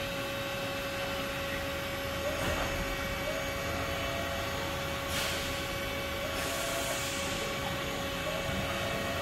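Haas UMC-750 five-axis machining center tilting its trunnion table: a steady machine hum with a constant tone, faint rising whines as the axis motors move it, and short hisses about five and seven seconds in.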